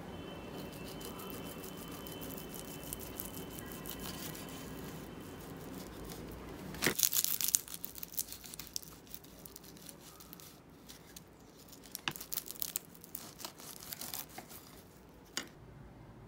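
Packaging being handled and torn open: a loud rip about seven seconds in, followed by scattered rustles and clicks.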